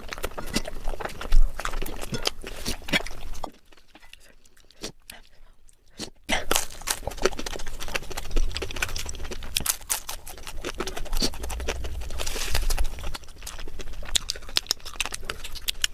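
Close-miked eating: irregular crunching and chewing clicks, dropping to a quieter stretch about four seconds in before the crunching resumes.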